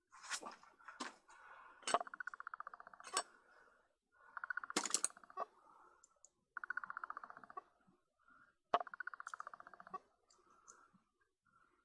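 Rapid ratcheting clicks from small mechanical work on a camera lens, in four runs of about a second each, with a few sharp knocks and taps between them.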